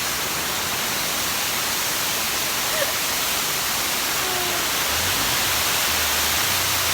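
Large waterfall's water rushing, a steady loud hiss. A faint low rumble joins it about five seconds in.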